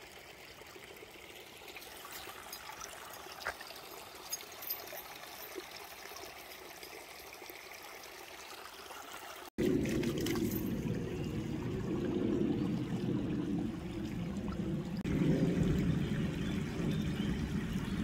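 Shallow stream trickling over stones, with a few faint ticks of water. About halfway through, a sudden cut brings a louder, deeper rush of water.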